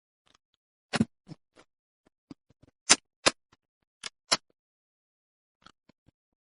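Eating sounds: a string of short, sharp clicks and smacks, about seven in four seconds. The loudest pair comes about three seconds in, and a few faint ones follow.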